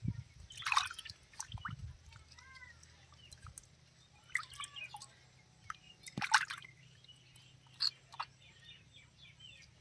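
Water splashing and dripping in a basin as hands rub and rinse a small fish, a series of short irregular splashes with the loudest about six seconds in.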